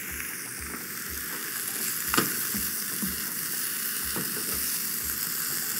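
Onion, garlic and spinach sizzling steadily as they sauté in a frying pan, with a sharp knock about two seconds in and a fainter one about two seconds later.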